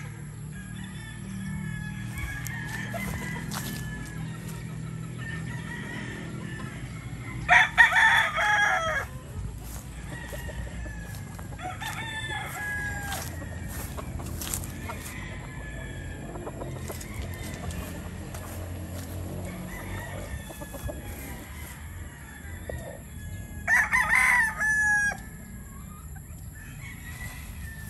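Young McLean gamecock stags (cockerels) crowing: two loud crows, about a quarter of the way in and again near the end, each lasting about a second and a half, with fainter crowing and clucking from other birds throughout.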